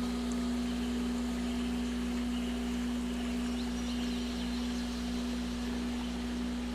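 A steady electronic tone held at one pitch over an even hiss of noise, with fainter higher tones fading in and out: a layered healing-frequency drone.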